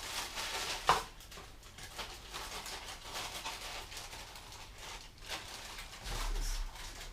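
Model-kit parts and packaging being handled: irregular rustling with small clicks and knocks, and one sharp knock about a second in.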